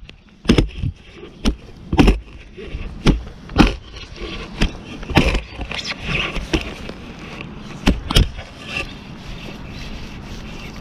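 Digging with a metal-detecting shovel: irregular strikes of the blade cutting into rooty soil, with scraping in between.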